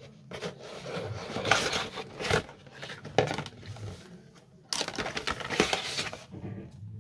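Packaging being handled and opened by hand: rustling and crinkling with scattered sharp clicks, in two louder stretches, about a second in and again near five seconds.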